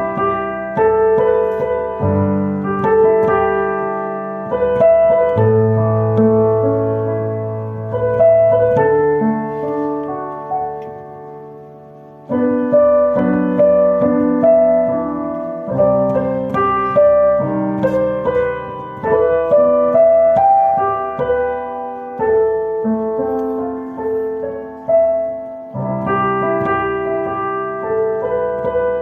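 Background piano music: slow chords under a melody, the notes left to ring and fade. About twelve seconds in the playing dies away briefly, then starts again.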